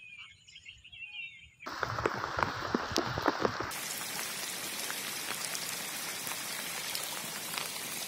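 Rain falling on bare rock and scrub. After a near-quiet second and a half come scattered drop impacts, then from about four seconds in a steady hiss of rain.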